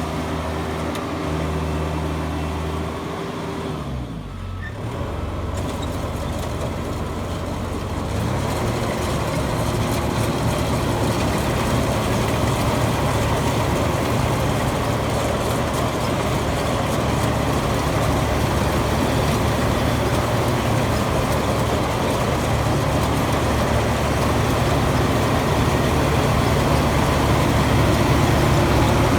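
Harvester engine running in a mud-filled rice paddy. Its pitch drops and dips about four seconds in, then it picks up from about eight seconds and runs steadily louder under load.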